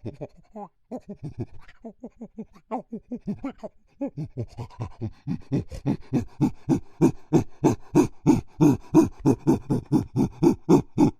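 Chimpanzee pant-hoot build-up: a run of quick, breathy in-and-out pants that grow louder and faster about four seconds in, reaching around four pants a second.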